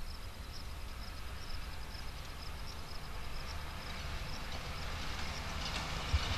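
Open-field background: a steady low rumble with faint high-pitched chirps repeating about three times a second.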